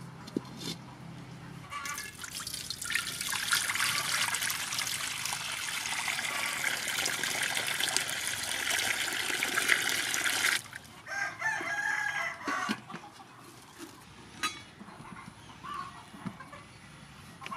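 Water pouring in a steady stream into a pan of water, splashing and bubbling as it fills, stopping abruptly about ten seconds in. Then a rooster calls a few times in the background.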